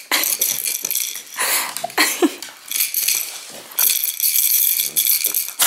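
A dog playing roughly with a plush toy, her collar tags jingling and rattling in quick irregular bursts as she shakes and tugs at it.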